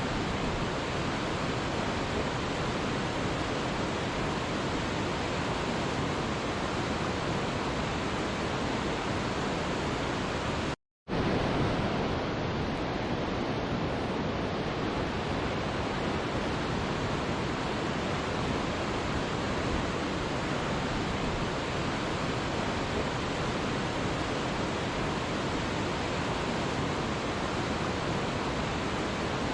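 Waterfall rushing in a steady, even roar of falling water, cutting out to silence for a split second about eleven seconds in.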